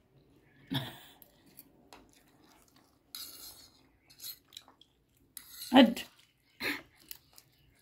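Cutlery clinking and scraping against plates and bowls during a meal of noodles, in scattered short clicks, with a couple of brief voice sounds in between.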